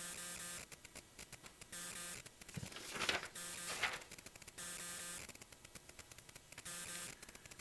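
A faint electrical buzz made of several steady tones, switching on and off in blocks about once a second. Handling noises come near the middle: a low knock, then two louder scraping clicks.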